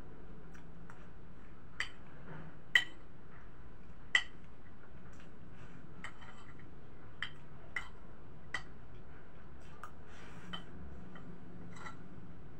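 Metal spoon clinking and tapping against a plate while eating: a scatter of short, sharp, ringing clinks, the two loudest about three and four seconds in, with lighter taps later.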